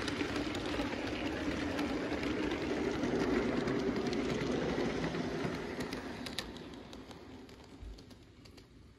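G-scale model freight train rolling past on garden track: a steady rumble of wheels on rail with scattered clicks, fading away over the last few seconds as the train draws off.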